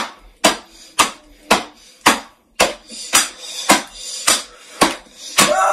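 A steady run of sharp hits, about two a second, eleven in all, struck in an even rhythm.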